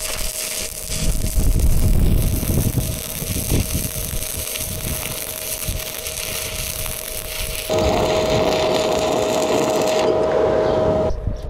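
Stick welding arc crackling and hissing steadily, under gusty wind rumble on the microphone. The arc gets louder and fuller about three-quarters of the way through, then cuts off suddenly just before the end.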